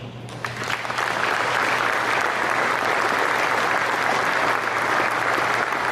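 Audience applauding: clapping that builds up over the first second, then holds steady.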